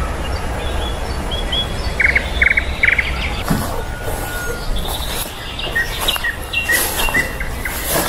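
Songbirds chirping and calling in woodland, with three quick buzzy chirps about two seconds in and a run of short higher calls in the second half, over a low steady rumble.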